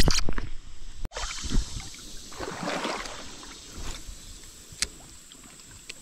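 Water splashing and sloshing with handling bumps, loud and sudden in the first second, then a softer rush of splashing in the middle and a quieter steady wash of creek water.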